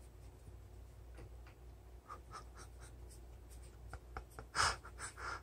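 A cat's claws scratching and scrabbling on the top of a fabric window blind as it backs along the headrail: faint scattered ticks and scratches, then two louder scrapes near the end.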